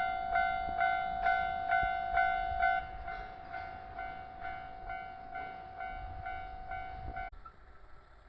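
Japanese level-crossing alarm ringing its repeated electronic 'kan-kan' bell, a little over two strikes a second, over the low rumble of a passing train. The bell drops in volume about three seconds in and cuts off suddenly near the end: the train has cleared the crossing.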